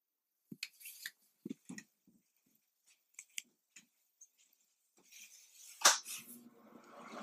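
Soft footsteps on a wooden floor and small handling clicks in a small room. About six seconds in comes a sharp, loud click, and a steady mechanical hum starts up and keeps running.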